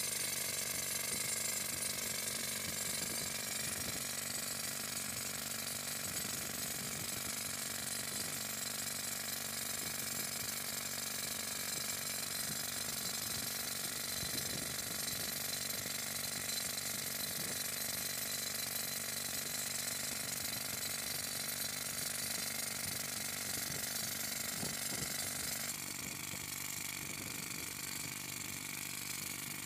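Toyo TY24 pneumatic rock drill hammering continuously into granite, a dense rapid rattle. About 26 seconds in it turns slightly quieter and duller.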